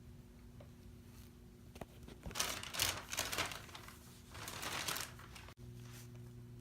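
Crinkling rustle of shirts and their packaging being handled, in two bursts about two seconds in and again near five seconds, over a steady low hum.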